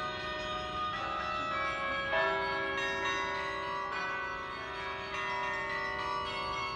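Bells ringing from a chapel tower: a run of struck notes, one every half second to a second, each ringing on and overlapping the next.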